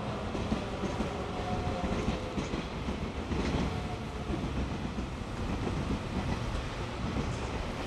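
A train rolling through the station out of view, a steady rail rumble with wheels clicking over the rail joints.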